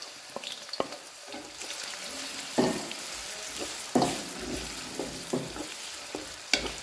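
Chopped onions sizzling in hot oil in a metal karahi while a wooden spoon stirs them. A few louder scrapes of the spoon against the pan come about two and a half, four and six and a half seconds in.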